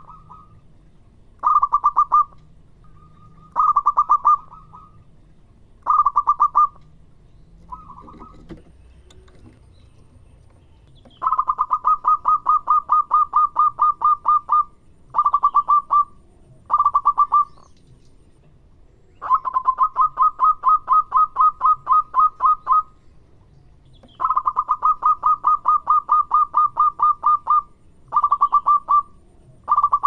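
Zebra dove (perkutut) calling in bursts of quick, staccato notes: first a few short phrases under a second each, then longer rapid runs of three to four seconds, with brief pauses between them.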